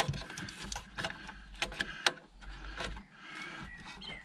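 Plastic wiring-harness connectors being pushed and wiggled into the sockets on the back of a Ford 6000CD car radio: a string of sharp, irregular clicks and rattles of plastic and wire.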